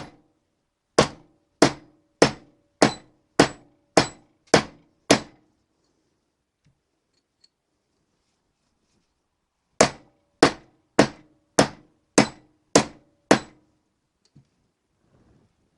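Hammer blows on a metal drift, driving a new Timken bearing race into a classic Mini rear hub, each blow ringing briefly. There is one blow, then a steady run of eight about 0.6 s apart, a pause of several seconds, and another run of seven. The race is close to fully seated.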